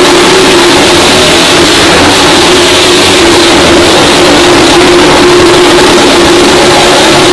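Several motorcycles riding round a wooden wall-of-death drum, their engines running loud and unbroken at a steady pitch.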